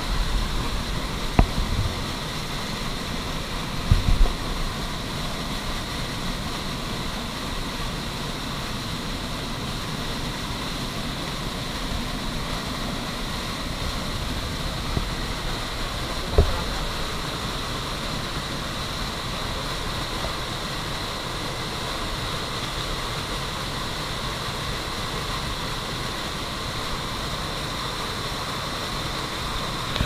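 Rushing white water of a fast rocky stream, a steady unbroken noise. A few short sharp knocks stand out over it, two in the first few seconds and one about halfway through.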